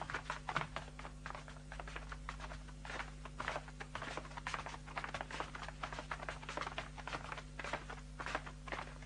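Dense, irregular clicking and crackling, several sharp clicks a second, over a low steady hum.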